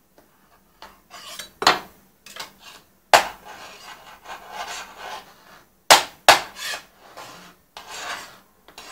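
Hand file rasping along the edge of a 2010 MacBook Pro's aluminium unibody casing in short, irregular strokes, softening the sharp edge. A few sharp metallic clicks stand out, the loudest about three seconds in and two close together around six seconds in.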